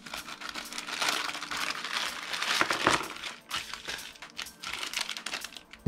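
A plastic kit parts bag crinkling as it is opened and handled for about three seconds, then scattered small clicks as the small parts are tipped out onto the table.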